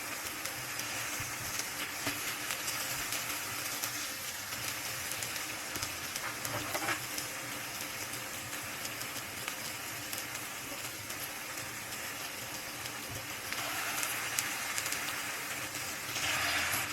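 Oil sizzling and crackling in a frying pan, a steady hiss that swells louder about 13 seconds in and again near the end.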